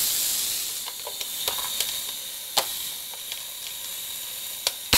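Raw beef burger patty sizzling in hot oil on a contact grill's preheated nonstick grill plates: a steady hiss with scattered crackling pops, easing a little about a second in. A sharp loud click near the end as the grill's lid is shut.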